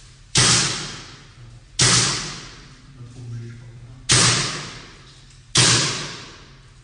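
Paintball gun firing four shots, one to two seconds apart, each a sharp pop that dies away over about half a second.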